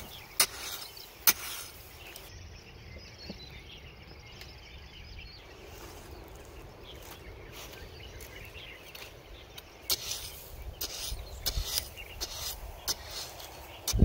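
A small hatchet-like metal blade scraping and chopping into gravel and ash. Two sharp strikes come near the start, then a quieter stretch, then a quick run of scrapes and knocks from about ten seconds in.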